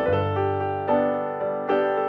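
Background piano music, calm, with a new chord struck about once a second.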